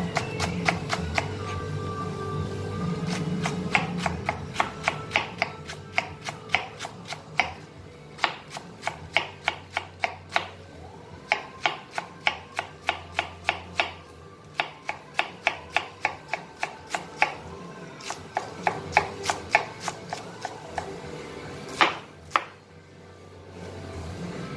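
Chef's knife shredding cabbage on a plastic cutting board in quick, even strokes, about four knocks a second, with a few short pauses and two louder knocks near the end; the blade is dulled. Background music plays underneath.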